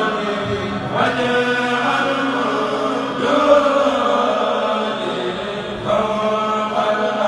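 A kourel, a Mouride group of male voices, chanting a religious khassida in unison, amplified through microphones. The voices hold long notes in phrases a few seconds long.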